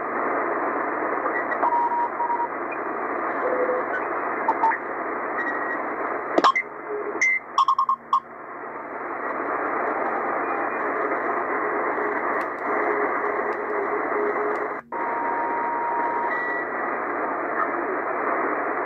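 Tecsun PL-880 shortwave receiver in LSB mode being tuned across the 40-metre amateur band: hiss and static from its speaker, narrowed to a telephone-like band by the sideband filter, with short whistling tones of carriers here and there. A cluster of crackles comes about six to eight seconds in, and the sound drops out for an instant about fifteen seconds in.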